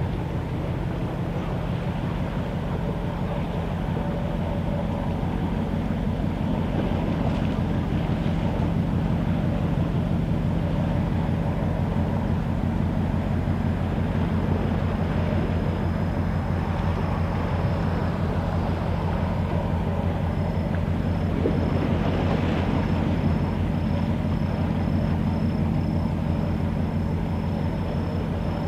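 Ship machinery heard across the water: a steady low drone with several held low tones, unchanging throughout.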